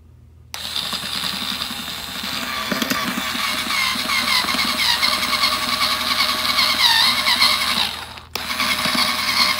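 Cordless drill whining as it drives screws through a metal drawer slide runner into a drawer, its pitch wavering under load. One long run of about seven seconds, a brief stop, then a shorter second run.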